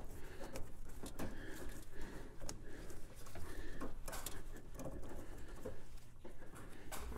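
Gloved hands working a brake hard line through a car's engine bay: scattered light taps, scrapes and rustling as the line is pushed past engine parts.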